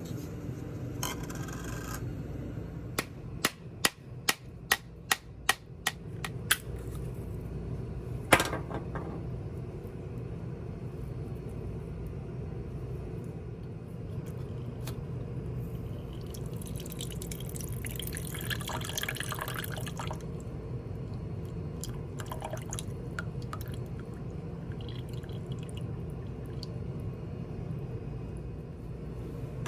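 A coconut being cracked open: a quick run of about eight sharp knocks on the hard shell and one louder blow, then liquid splashing out as the coconut water pours.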